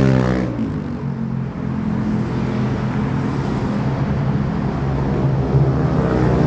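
A vehicle's engine running steadily under way, with a low drone and road noise.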